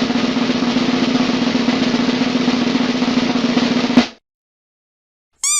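Snare drum roll lasting about four seconds and ending in one louder hit. Near the end comes a short pitched chirp in two quick parts, each rising and then falling.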